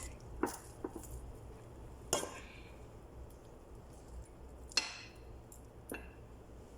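Meat being put into a cooking pot: about five scattered clinks and knocks of the pot and utensils, the loudest about two thirds of the way through, over a faint low hum.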